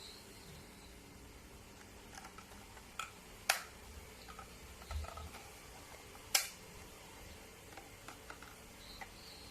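Quiet handling of a Shark WandVac handheld vacuum: faint small rustles and taps, with three sharp plastic clicks, two close together and a third about three seconds later.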